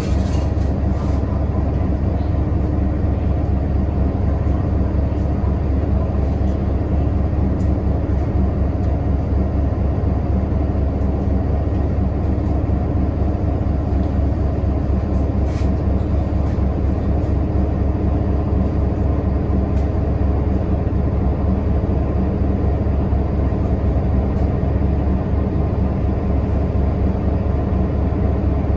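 Nova Bus LFS Artic articulated diesel bus, heard from inside the passenger cabin: a steady low engine drone with road noise, unchanging throughout.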